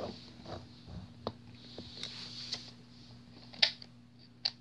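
Handling noise: a few scattered light clicks and taps, the two loudest near the end, over a faint steady low hum.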